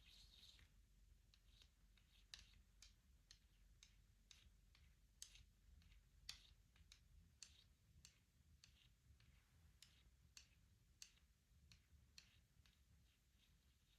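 Faint, light clicks and taps on a wooden shut-the-box game board, irregularly spaced about two a second. A soft scratching stops under a second in.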